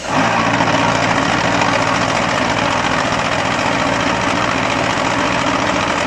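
A concrete block machine's vibration table running: a loud, steady mechanical hum and rattle that starts abruptly and dies away at the end, the burst of vibration that compacts concrete in the mould.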